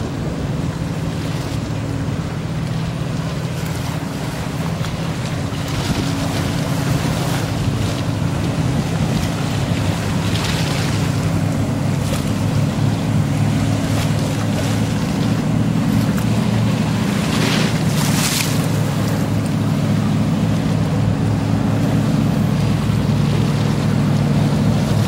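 Police patrol boat engine running at speed with a steady low drone, over the rush of churned water and wind on the microphone. Two louder gusts of rushing noise come about ten and eighteen seconds in, and the drone grows louder toward the end.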